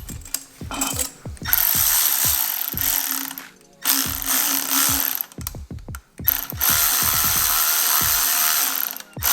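Ratchet wrench clicking in quick runs while a screw holding the charge pipe is snugged up. Three long stretches of loud, steady hiss, each about one and a half to two and a half seconds, come between the runs of clicks.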